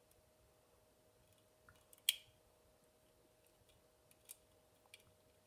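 A few faint plastic clicks and taps of Beyblade parts being handled and fitted together, one sharp click about two seconds in louder than the rest, over a faint steady hum.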